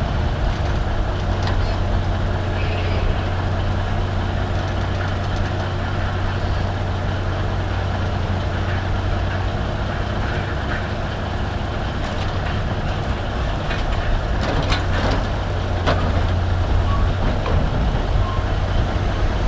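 Heavy diesel engine running steadily while a Caterpillar log loader swings a log onto a loaded logging truck, with a few knocks about two-thirds of the way through as the log is set down on the load.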